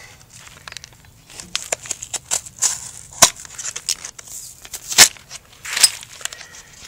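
Utility knife cutting and prying at the pleated paper element of a spin-on oil filter: irregular crackling and tearing of the paper, with three sharp snaps, about three, five and six seconds in.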